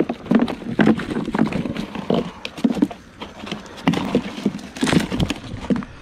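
Live mullet flopping against a plastic cooler and in a cast net as the net is shaken out: an irregular run of knocks and taps, easing off briefly about three seconds in.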